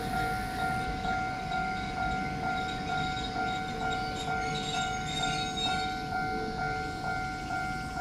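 Japanese railway level-crossing alarm ringing, a steady repeating ding-ding that signals the crossing has been activated and its barrier is coming down for an approaching train.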